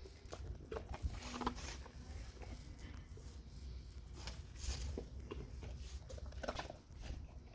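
A dog moving about and eating treats: irregular small clicks and short scuffs.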